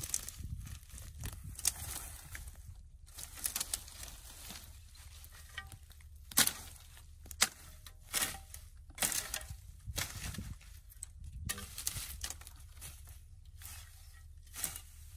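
Hoe blade scraping and chopping into grassy ground among dry twigs, with rustling and cracking of grass and sticks. The strokes come irregularly, with a few sharp, louder strikes in the middle.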